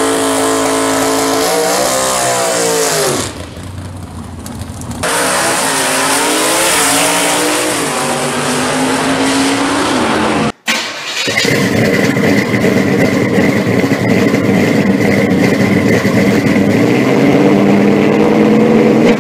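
Drag cars' engines at high revs: a burnout with the revs held, wavering and rising again, then after a sudden cut about halfway through a steady hard run at full throttle with a high whine over it.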